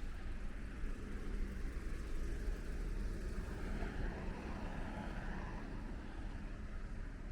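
City street ambience: a steady low rumble of traffic with a faint hiss above it.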